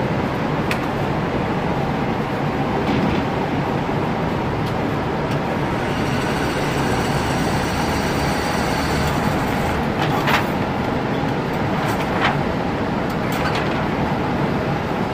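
Steady rumbling air noise of an indoor range, with a motorized target carrier whining for a few seconds in the middle as it runs the paper target back to the shooting bench. A few faint sharp clicks sound near the end.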